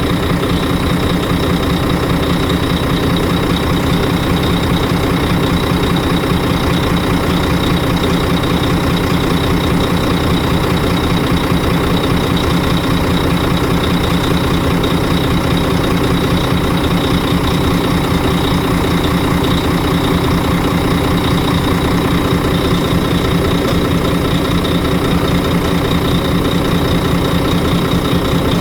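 Volvo FH12 truck's inline-six diesel engine running at a steady idle. This engine has a knock, with a fault pointing to cylinder 3, that is being tracked down.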